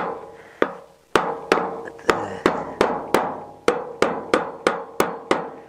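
Steady run of light hammer taps on metal, about three a second, each with a short metallic ring: a new bearing being driven into the steel hub of a wheelbarrow wheel.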